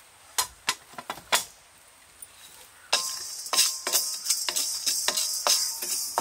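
A few sharp clicks and knocks, then background music with a quick percussion beat sets in about three seconds in.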